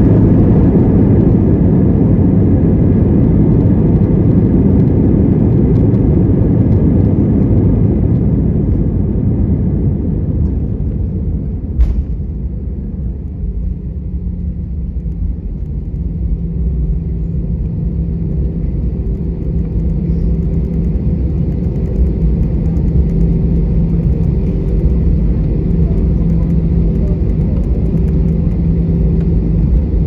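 Airbus A320 cabin noise during the landing rollout: a loud rumble of engines and wheels that eases off over the first dozen seconds as the aircraft slows, a single sharp click about twelve seconds in, then a steadier, lower hum with a couple of steady tones.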